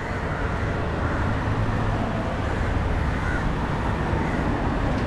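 Steady road traffic noise from passing vehicles, an even low rumble with a hiss.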